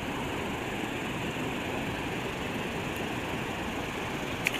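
Steady rush of fast river current. A brief splash near the end as a released smallmouth bass hits the water.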